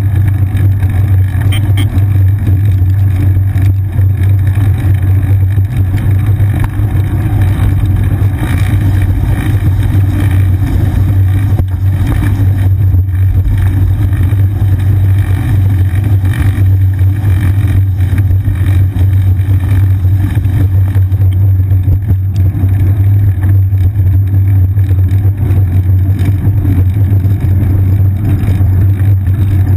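Steady low rumble of wind and road vibration picked up by a seat-mounted GoPro Hero 2 on a moving bicycle, loud and unbroken.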